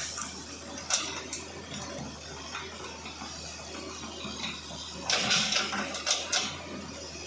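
Hitachi excavator at work, its engine running steadily under sharp cracks and clatter, with the loudest cluster of cracks about five to six and a half seconds in.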